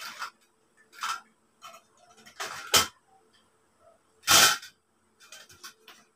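Frame parts of a double-pole telescopic clothes rack knocking and clattering as they are handled and fitted together: a string of separate sharp knocks, the loudest about four seconds in, with lighter clicks near the end.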